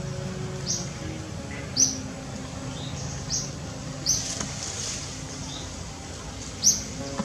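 Bird chirping: a short, high chirp every second or two, over a soft bed of held low notes.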